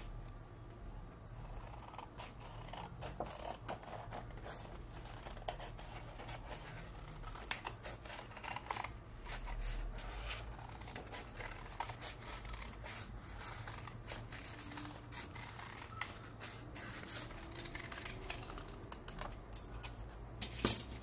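Scissors snipping through coloured card paper (canson), in short, irregular cuts with the paper rustling as the sheet is turned. A faint steady low hum sits underneath.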